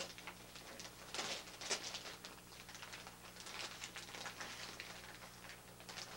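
Wrapping paper rustling and tearing as a small child rips open a gift, in a string of short crackles that are busiest between about one and two seconds in and thin out after about four seconds. A faint steady hum runs underneath.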